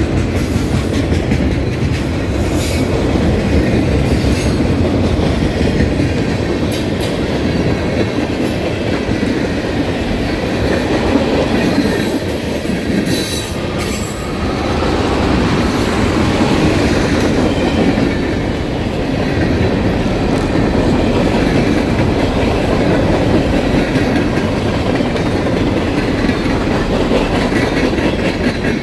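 Freight cars of a mixed freight train rolling past at close range: pipe-loaded flatcars, tank cars and open hoppers, their wheels making a steady rumble on the rails with occasional clicks. A brief high-pitched wheel squeal comes about halfway through.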